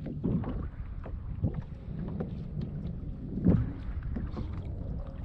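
Water slapping against a kayak's hull, with wind on the microphone and a few small knocks, the loudest about three and a half seconds in.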